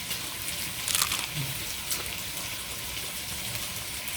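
Steady sizzle of food frying in an electric skillet, with a brief louder crackle about a second in.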